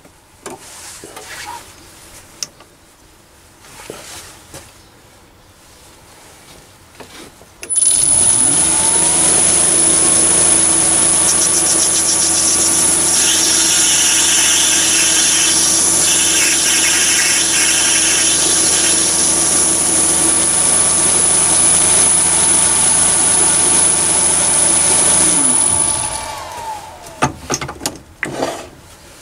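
Chinese mini lathe motor starting about eight seconds in and running steadily at about 950 rpm with a high whine, while a 2 mm grooving insert cuts an O-ring groove in the brass piston for several seconds in the middle; the lathe is then switched off and winds down. A few light handling clicks come before and after.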